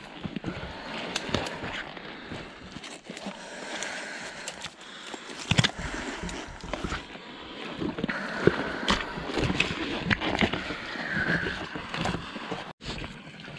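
Footsteps in rubber boots through dry brush and sticky clay mud: twigs cracking and snapping underfoot, boots squelching, and rubber rain pants rustling and rubbing with each step, in irregular clicks and cracks.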